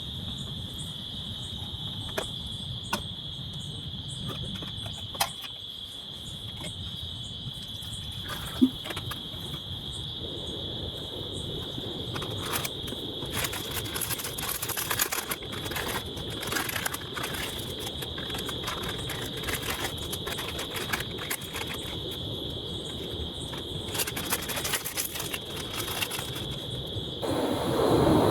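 Insects trilling steadily in one high continuous tone, with scattered drops tapping and a soft rain patter that thickens from about ten seconds in. The trill cuts off suddenly near the end, giving way to a louder rushing noise.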